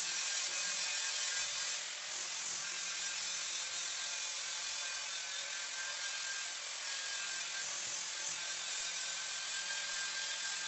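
Electric angle grinder fitted with a coarse grinding stone, running steadily as it grinds the edge of a granite countertop: a steady whine over the hiss of the stone on granite.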